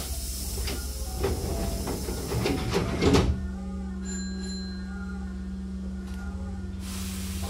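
Train's double sliding doors closing, hissing while they move, with rattling knocks that end in a thud as the two leaves meet about three seconds in. A steady low hum follows, and a hiss of air starts near the end.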